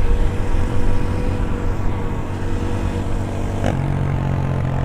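Aveta VTM 250 LX motorcycle engine running on the move, its note sagging slightly as the bike eases off. A short click comes near the end, after which the engine holds a steady lower note.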